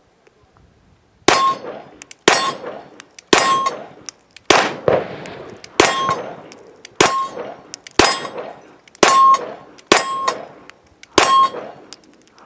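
Sig P320 X5 pistol fired about ten times at a slow, steady pace of roughly one shot a second. Most shots are followed by a short ringing clang of a steel target being hit.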